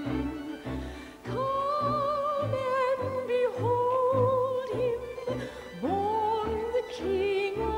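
Music: a singer holding long notes with wide vibrato in an operatic style, over accompaniment with a steady low pulse of about two beats a second.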